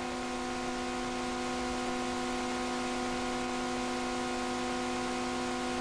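Steady electrical hum and hiss from a PA sound system: several held, unchanging tones over a constant background hiss.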